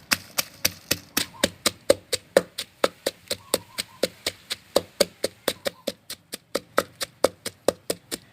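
Pestle pounding chillies in a mortar for som tam: quick, even knocks at about five strikes a second.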